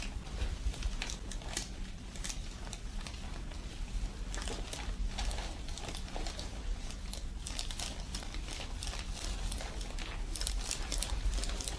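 Irregular rustling and crinkling with many small clicks and scrapes over a low steady hum: hands working over a patient lying on a chiropractic treatment table, with body, clothing and table cover shifting during soft-tissue work.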